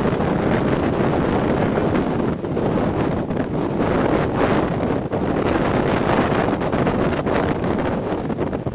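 Hurricane wind gusting and buffeting the microphone: a loud, steady rush with a rumbling low end that swells and dips from gust to gust.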